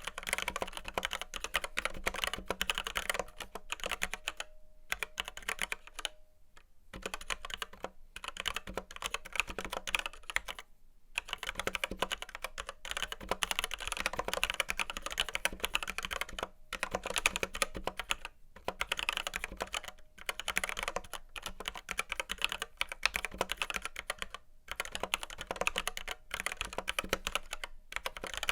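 Continuous typing on a Red Square Keyrox Classic TKL v2 mechanical keyboard with linear Gateron Red switches and PBT doubleshot keycaps: fast runs of keystrokes, with a few brief pauses.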